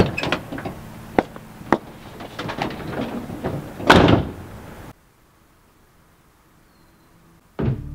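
Pickup truck door: a few sharp clicks and knocks, then the door slams shut about four seconds in. Music begins near the end.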